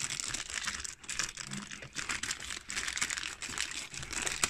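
Thin clear plastic bag crinkling continuously as hands squeeze and pull it open to free a toy locomotive, with many small sharp crackles.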